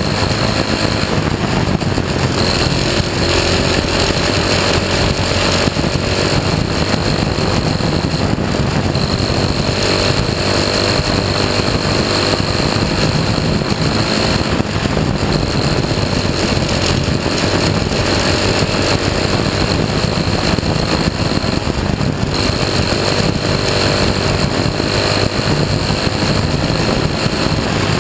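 Dirt-track race car's engine running hard lap after lap, its pitch rising and falling gently through the turns, heard through the car's onboard camera. The engine is running unrestricted, without its restrictor plate.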